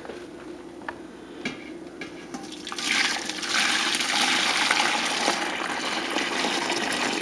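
Thick cooked custard (cream, egg yolks and sugar for an ice-cream base) poured in a steady stream from a saucepan into a container, the pour starting about three seconds in and running on with a continuous splashing.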